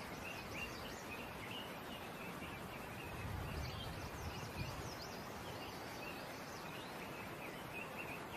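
Natural outdoor ambience: a steady background hiss with small birds chirping over and over in short, quick notes.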